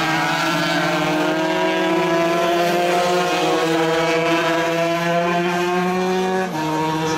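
125cc racing motorcycle engine revving hard, its pitch climbing steadily for several seconds, then dropping sharply near the end and climbing again as the rider shifts up a gear.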